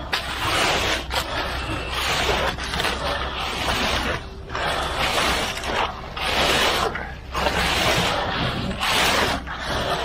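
Concrete rakes (come-alongs) being dragged through wet concrete: a repeated wet scraping, sloshing stroke about once a second, over a steady low hum.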